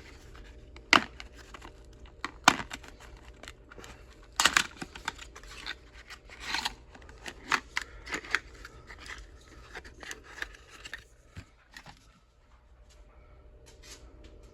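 Small cardboard boxes of shotgun slugs being handled: irregular taps, clicks and papery rustles of cardboard, which quieten near the end.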